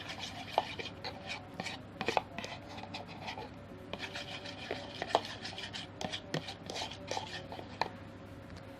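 A spoon stirring clear glue mixed with water in a container, scraping and clicking against the sides in quick, irregular strokes with occasional short squeaks.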